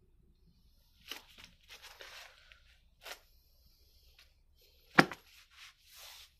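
Plastic bags of engine gaskets and seals crinkling and rustling as they are handled, in several short bursts. A single sharp knock comes about five seconds in, louder than the rustling.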